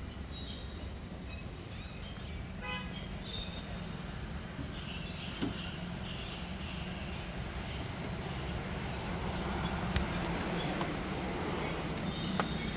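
Steady traffic noise with brief car horn toots, and a couple of sharp clicks.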